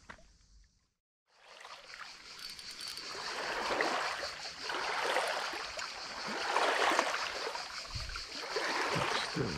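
Water splashing and sloshing in uneven surges from a hooked garfish thrashing at the surface as it is reeled in. The sound drops out about a second in, then comes back.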